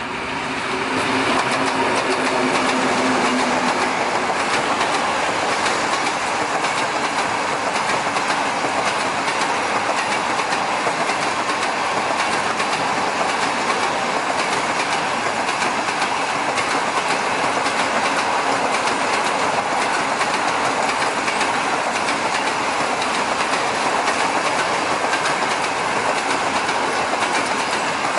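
ST48 diesel freight locomotive passing close, its engine drone heard for the first few seconds. Then a long string of covered freight wagons rolls steadily by, with the rumble of the wheels on the rails and the clickety-clack of the wheels over the rail joints.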